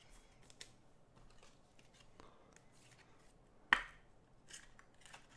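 Trading cards being handled: faint sliding with light ticks, and one sharp click a little past halfway.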